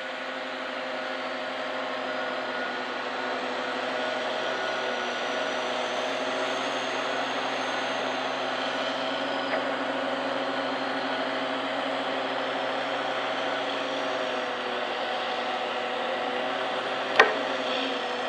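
Steady machine hum: several held tones over an even hiss, unchanging in level, with one sharp click near the end.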